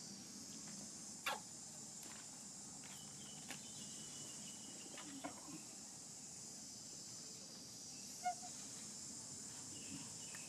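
Steady high-pitched insect chorus, with a few sharp clicks scattered through it, the loudest about a second in and again near eight seconds.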